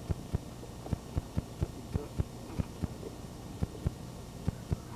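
Dull thumps of wrestlers' feet and bodies landing on a trampoline mat, irregular at about three a second, over a steady low hum.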